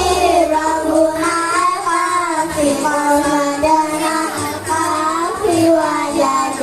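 A child singing a melody in held, gliding notes over musical accompaniment.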